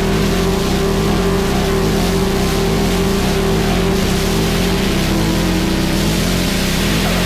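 Harsh noise wall: a dense, unchanging wall of static hiss spanning lows to highs, with a steady held drone underneath and no change in level.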